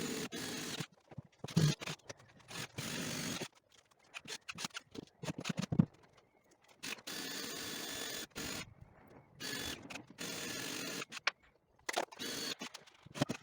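A power tool running in short bursts of one to two seconds that start and stop abruptly, about five times, with knocks and clatter from handling in between.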